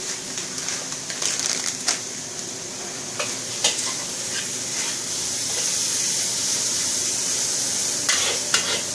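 Prawns, scallops and chicken sizzling with a steady hiss in a hot wok while a spatula stirs them. Now and then the spatula scrapes and clacks against the wok, with several clacks close together near the end.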